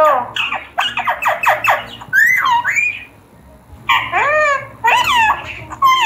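Indian ringneck parrot calling: a fast run of short chattering notes, then squawks that swoop up and down in pitch, in several bursts with a short pause near the middle.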